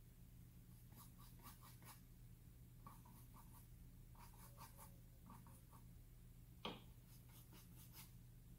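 Faint dabbing of a nearly dry brush on an acrylic canvas board, in small groups of three to five light taps, with one sharper click about two-thirds of the way through. A low steady hum runs underneath.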